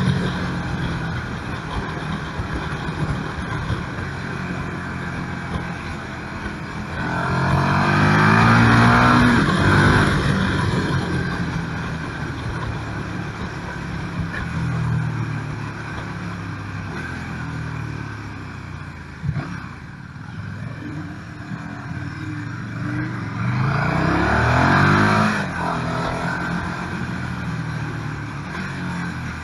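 KTM 1290 Super Duke R's V-twin engine heard from the rider's seat, running on part throttle and twice accelerating hard through the gears, the pitch climbing in steps, about seven seconds in and again near the end.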